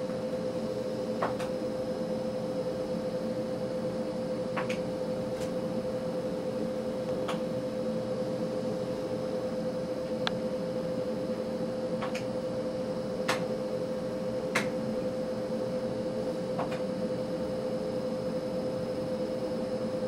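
Steady electrical hum of an ultrasound scanner with one constant tone, and about ten sharp clicks of its controls scattered through it, one every second or two.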